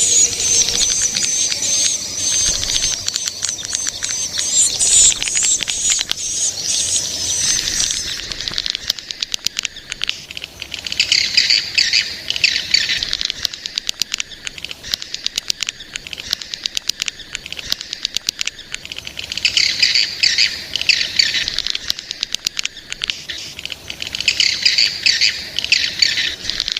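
Swiftlet calls, billed as those of juvenile swiftlets: a continuous high, shrill trilling twitter, turning after about eight seconds into rapid dense ticking with repeated bursts of chattering chirps.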